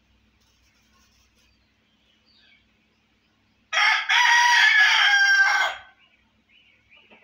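Rooster crowing once: a short first note and then a long held one, about two seconds in all, starting nearly four seconds in.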